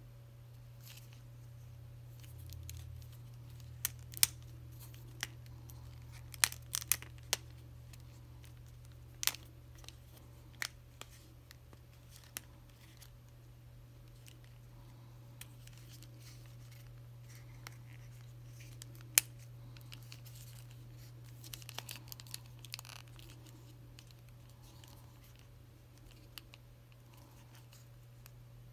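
Plastic joints and parts of a Transformers Kingdom Leader-class Megatron action figure clicking and snapping as it is handled and posed: scattered sharp clicks, then a brief run of small rattling clicks about three quarters of the way through, over a steady low hum.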